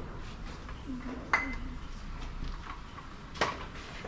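Two sharp metal clinks about two seconds apart, the first ringing briefly, from tools and metal parts knocking together while a truck's windscreen wiper arm is worked loose.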